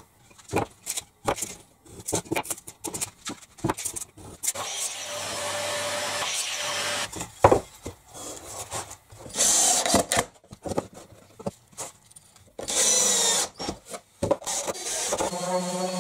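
Workbench handling: wooden pieces knocked and set down, with many sharp clicks and a few short stretches of steadier tool noise. About a second before the end, an electric orbital sander starts and runs steadily.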